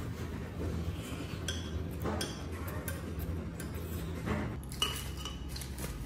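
Metal knives and forks clinking and scraping while cutting food in paper-lined plastic baskets, with a sharper, ringing clink near the five-second mark.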